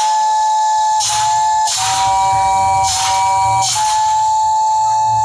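Scrap-metal robot band sculptures playing a sequence of five held chords on whistle-like tones, each chord opening with a burst of hissing air.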